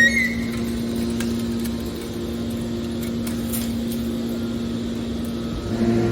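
Hydraulic scrap metal baler's power unit running with a steady hum, with a few light clicks and knocks. The hum grows louder and heavier near the end.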